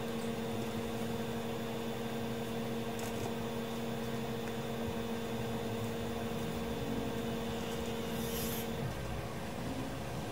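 Steady electrical hum over a constant hiss, from powered workbench equipment; the hum cuts off about nine seconds in.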